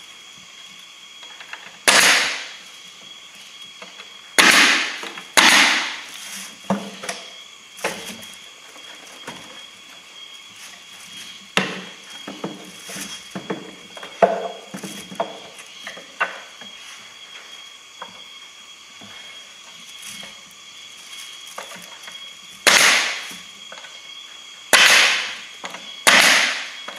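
Pneumatic coil nailer firing nails into the wooden boards of a hive box. Each shot is sharp with a short fading tail: three shots about two, four and a half and five and a half seconds in, and three more near the end. Lighter knocks and taps of wood come in between.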